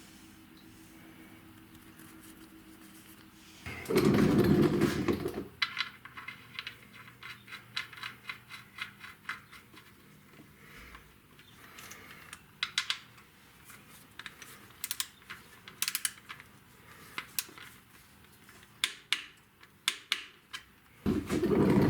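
Hand work with tools in a garage: a short loud mechanical burst about four seconds in, then a long run of light, irregular clicks and taps, and another loud burst near the end.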